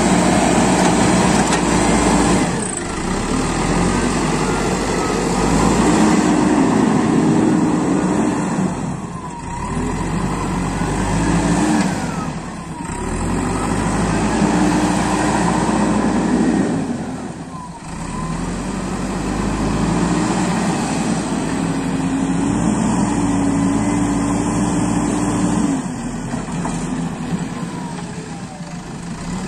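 JCB backhoe loader's diesel engine running under load as it works the front bucket in soil, its speed dropping and rising again several times.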